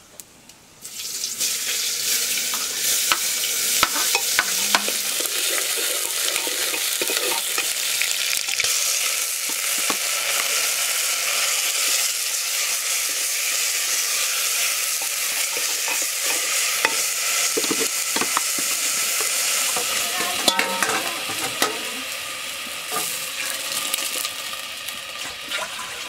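Chopped leafy greens tipped into hot oil in an aluminium pot start sizzling about a second in, a steady frying hiss with scattered clinks and scrapes of a metal ladle stirring them against the pot; the sizzle eases near the end.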